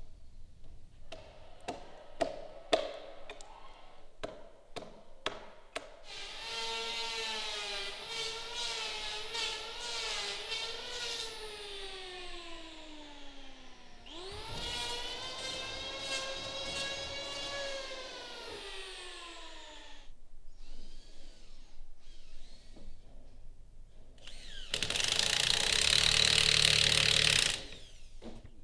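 Heavy wooden timbers knock and clack several times as they are handled. Then an electric woodworking power tool's motor whines and winds down in pitch. Another spins up quickly, runs and stops, and near the end a power tool cuts loudly into wood for about three seconds.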